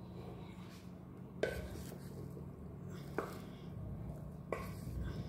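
A wooden spatula knocks three times against the inside of an aluminium pressure cooker while cooked rice is stirred and fluffed, over a low steady hum.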